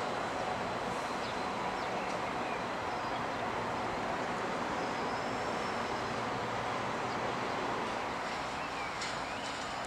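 Steady rumble of a passenger train running slowly away through the station, with wheel and running noise.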